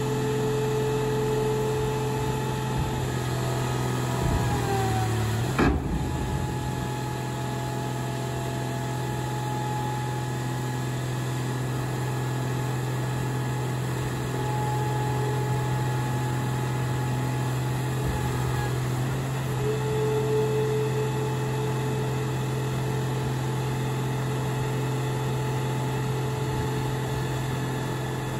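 Mac car crusher's engine-driven hydraulic power unit running steadily as the crushing lid is worked, a hum with a whining overtone. A few seconds in its pitch sags briefly and there is a single clunk, then it settles back to a steady run.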